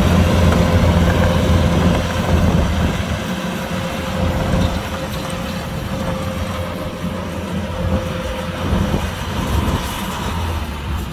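Kubota DC-105X combine harvester's diesel engine running steadily, with a thin steady whine over the low drone. The level eases a little about three seconds in.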